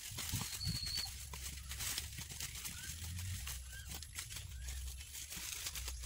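Dry corn leaves and stalks rustling and crackling as ears of corn are picked by hand, with many small snaps and clicks over a low steady rumble. A bird gives a short high call about a second in, with faint chirps later.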